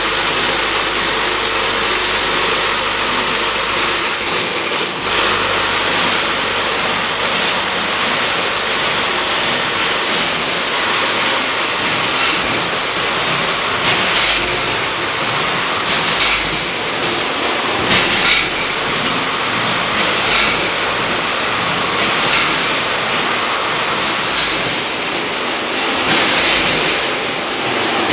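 Automatic nut weighing and bagging machine running: a steady, loud mechanical noise with a few brief louder clatters. A low hum fades out about five seconds in.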